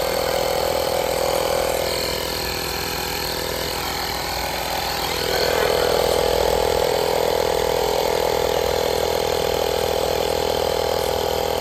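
A 12-volt tyre-repair-kit air compressor running steadily as it pumps air into a flat car tyre, a constant mechanical drone that grows louder about five seconds in.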